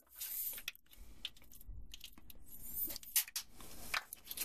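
Small irregular scrapes, clicks and rubs as a toothbrush is readied and put to the teeth, with the first brushing strokes near the end.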